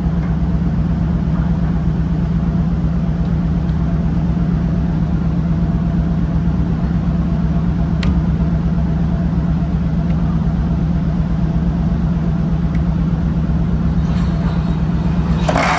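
Fishing trawler's engine running with a steady low drone. A single sharp click comes about halfway through, and a short burst of noise comes near the end.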